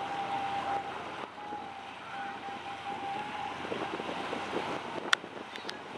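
Fishing boat's diesel engine running as it motors past, under wind on the microphone, with a steady high tone that breaks off about a second in and comes back. A sharp click about five seconds in.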